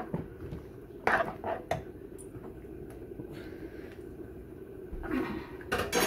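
Metal ladle knocking and scraping against a frying pan while stirring a simmering curry, a few short clatters about a second in and again near the end, over a steady low hum.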